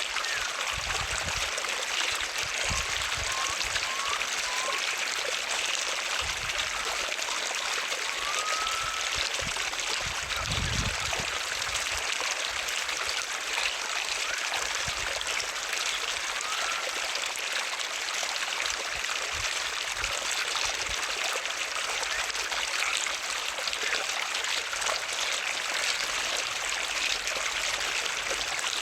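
Water flowing steadily, a continuous even rush like a stream or cascade running into a pool.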